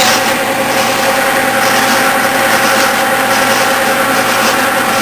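Clausing 12-inch lathe running steadily under power in slow back gear, turning a die holder in its chuck while the tailstock feeds quarter-inch steel stock into the die to cut a quarter-inch fine thread.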